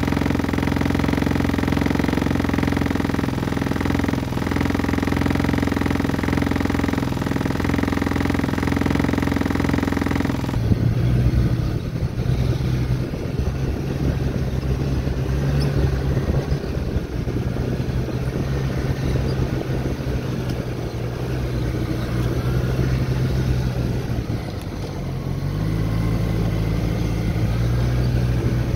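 Snowmobile engine running steadily at a fairly high, even pitch. About ten seconds in, the sound switches abruptly to a lower, rougher engine drone as the machine travels along a trail, with the engine picking up speed near the end.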